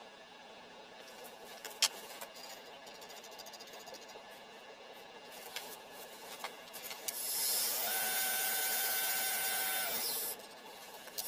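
Wood lathe switched on, its motor running with a steady whine and hiss for about three seconds, then cutting off abruptly. Before that there are only a few light clicks and knocks of handling at the lathe.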